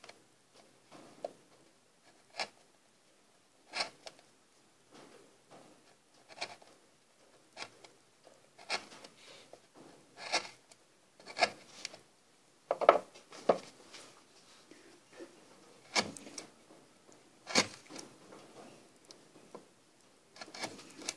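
Hand chisels paring wood out of a carved letter's recess: a run of short, irregular scraping cuts, roughly one every second or so, a few of them noticeably louder.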